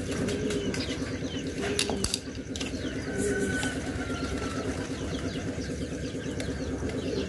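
A steady, evenly pulsing engine-like drone in the background. About two seconds in come a couple of sharp metal clicks from pliers working on the removed diesel fuel-injection pump, and pigeons coo now and then.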